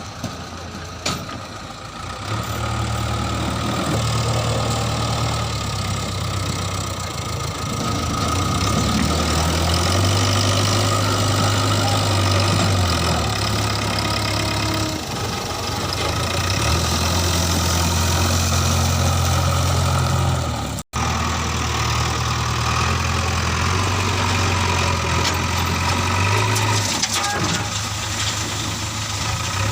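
Heavy diesel engine running, its low hum stepping up and down in strength, with a split-second dropout about two-thirds through.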